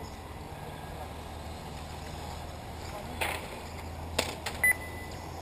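A short, high electronic beep from the race's transponder lap-timing system about two thirds of the way in, marking a car crossing the timing loop. Before it come two sharp clacks, over a steady low hum and hiss.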